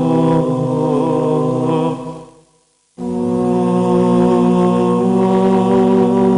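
Orthodox church chant: several voices sing slow, long-held notes over a steady low drone. About two seconds in the chant fades to silence, then starts again abruptly a second later.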